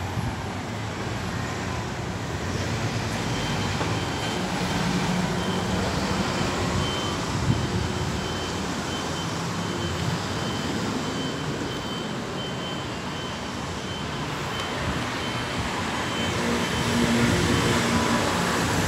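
Steady motor-vehicle engine and street traffic noise. A faint high-pitched beeping repeats over it for most of the stretch, starting a few seconds in.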